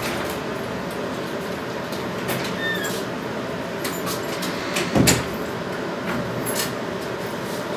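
A wooden door being opened and shut, with a single low thud about five seconds in, scattered sharp clicks of the handle and latch, and footsteps, over a steady background hum.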